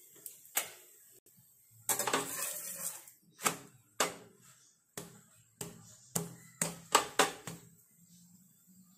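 Steel spatula scraping under a dosa and knocking against a nonstick frying pan as the dosa is turned. A scrape comes about two seconds in, then a string of sharp clicks and knocks, the loudest about seven seconds in.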